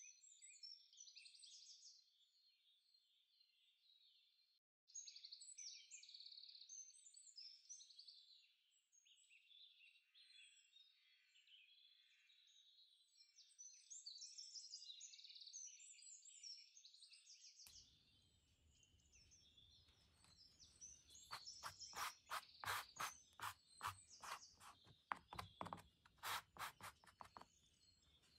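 Kitchen sponge dabbing paint onto a canvas: a quick run of taps, two or three a second, in the second half, over birds chirping throughout.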